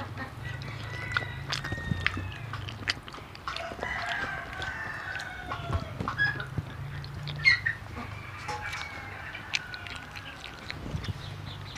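Chickens clucking and a rooster crowing a few times, with scattered sharp clicks of chopsticks against a bowl and a steady low hum underneath.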